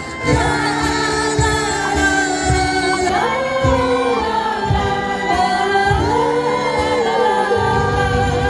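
A woman singing with an angklung ensemble: the shaken bamboo angklung hold the chords, backed by acoustic guitar, violin and a low thumping cajón beat.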